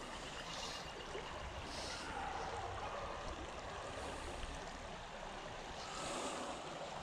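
Shallow creek water running steadily over a rippling riffle, with a few soft swishes.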